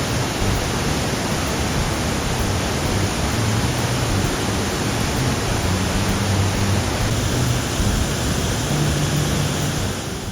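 Steady rush of the Black River falling over a waterfall and pouring from old waterworks outlets: a loud, even water noise.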